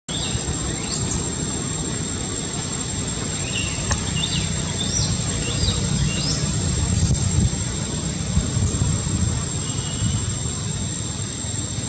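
Outdoor ambience: a steady, high, unchanging insect drone over a low rumbling noise, with a few short, high, rising chirps between about one and seven seconds in.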